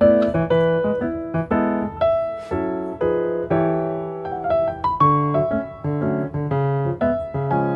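Background music: a bright piano melody of short notes.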